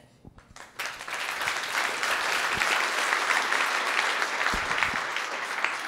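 Audience applauding: a dense patter of many people clapping that swells about a second in, holds steady, and begins to die away near the end.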